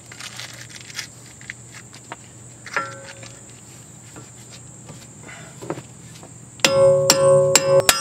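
A hammer pounding a metal socket used as a drift against the end of a VW Jetta's front CV axle, knocking the axle out through the wheel hub: a quick run of about five ringing metallic blows in the last second and a half. Before that there is only faint rustling and a few soft knocks as a rag is packed into the hub to protect the axle end.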